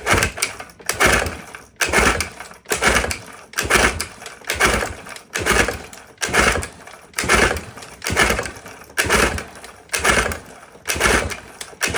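1969 Johnson 9.5 hp two-cylinder two-stroke outboard being turned over by hand for a spark test, in quick, evenly repeated strokes.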